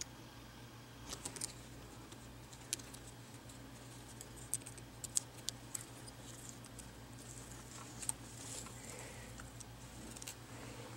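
Faint scattered ticks and soft rustling from a hobby knife tip and fingertips lifting backing paper off thin adhesive strips on a laptop screen bezel, over a steady low hum.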